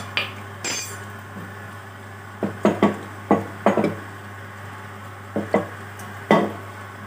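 About ten short knocks and clinks in small clusters, typical of a steel kadhai being handled and shifted on a gas-stove grate, over a steady low hum.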